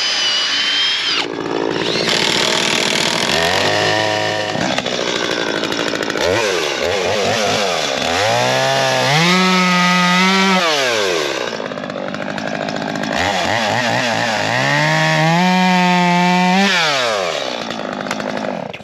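Chainsaw engine revving up and down several times, twice climbing to full throttle and holding there for about two seconds before dropping back.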